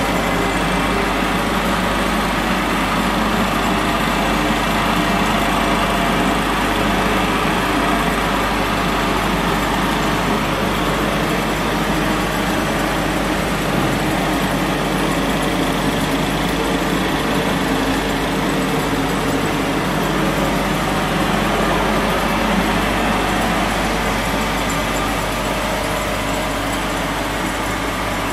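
Hempel PD 90 automatic round-stick sanding machine running steadily, its 4 kW spindle motor and belt drive making a constant mechanical noise with a low hum.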